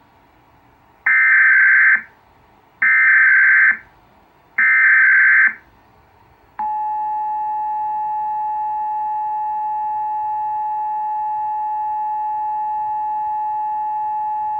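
Emergency Alert System test signal played through a late-1970s Panasonic Quintrix II television: three short bursts of buzzing digital SAME header data, then about six and a half seconds in the steady two-tone EAS attention tone starts and holds. It is the header and alert tone of a Required Monthly Test, just ahead of the spoken test message.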